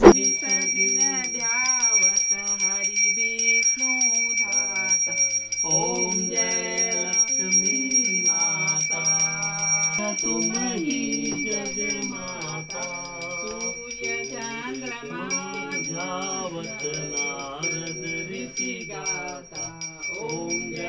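Several voices singing a Hindu aarti hymn, with a small puja hand bell rung steadily throughout, its ringing holding as a thin high tone over the singing.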